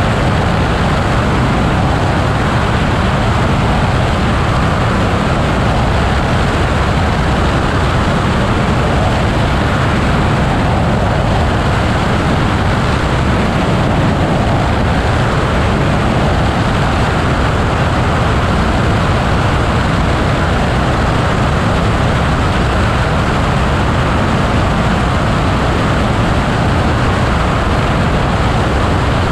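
Altus motorglider in flight: a loud, steady, unchanging rush of flight noise, airflow and machine noise blended together.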